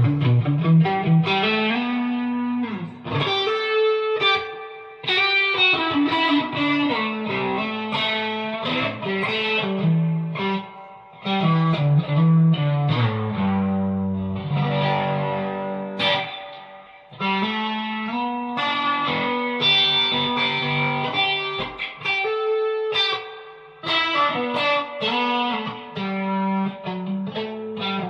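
Fender Player Series Stratocaster electric guitar with single-coil pickups, played through an amp during a sound check: a run of chords and single-note lines with a few brief pauses between phrases.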